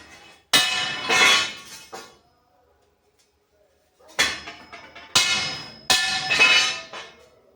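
Hammer blows on a steel angle iron to knock it straight, each strike ringing metallically. One blow comes about half a second in, then after a pause a run of about four more near the end.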